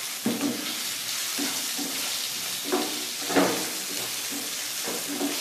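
Boiled potato cubes sizzling in hot oil in a frying pan while a spatula stirs them, with a few louder scrapes and knocks of the spatula against the pan.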